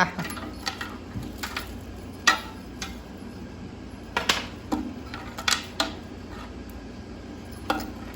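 Irregular light clicks and clatters of a small hard object knocking on a hard surface, about a dozen short strikes scattered over several seconds, as a kitten plays with a toy.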